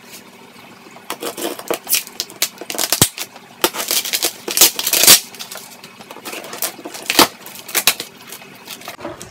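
A cardboard shipping box being opened: packing tape cut and torn off, and the cardboard flaps pulled open. The result is irregular scratching, ripping and crackling, with a few sharp clicks.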